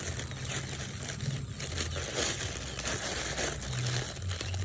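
Clear plastic bag of grain feed crinkling and rustling as its handles are twisted and knotted by hand.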